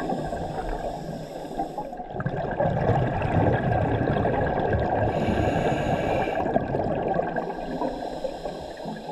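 Scuba divers' regulator breathing heard underwater: a hissing inhale, then a long burbling exhale of bubbles, with the cycle repeating twice more.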